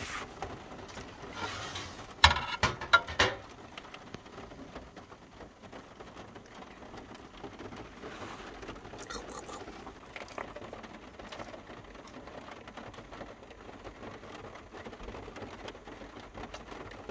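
Rain pattering steadily on a camper van's roof, heard from inside the van. A few sharp knocks clatter about two seconds in.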